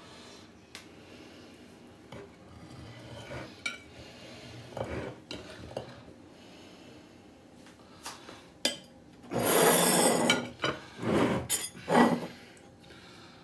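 Knife cutting a slice of iced sponge cake, with soft taps and scrapes of the blade on the ceramic plate. Near the end come louder scrapes and clinks of knife and plates as the slice is lifted out and set on a plate.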